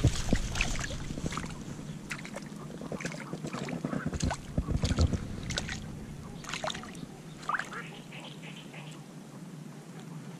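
Water sloshing and dripping with twigs and branches scraping and clicking as a person wades waist-deep through a brushy swamp, irregular and close, with a few short high squeaks in the middle.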